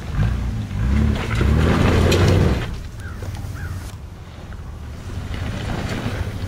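Toyota Land Cruiser 80 series' gas inline-six revving hard in repeated surges, each one rising and falling in pitch, as it climbs a steep rocky ledge under load. About two and a half seconds in, the revs drop and it runs more quietly.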